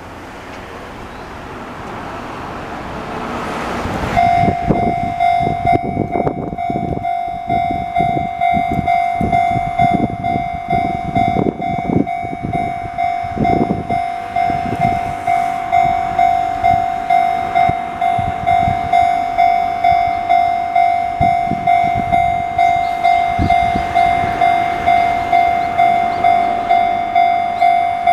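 Chichibu Railway level-crossing warning bell, the line's own "Chichibu" bell sound, starting abruptly about four seconds in and then ringing steadily in regular pulses. It starts as the rumble of an approaching train peaks, and for roughly the next ten seconds the train passes, its wheels knocking over the rail joints.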